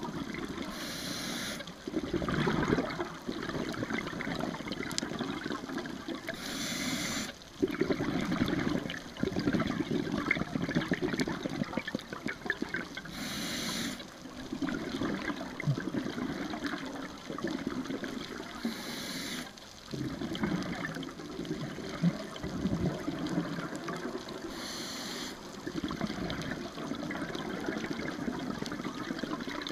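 Scuba diver breathing through a regulator underwater: a short hiss of inhaled air about every six seconds, each followed by a long bubbling rumble of exhaled bubbles.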